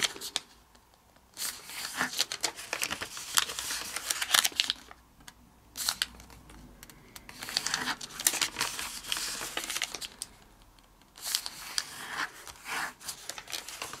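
A sheet of origami paper crinkling and rustling as it is folded and creased sharply by hand, in spells of crackling broken by a few short pauses.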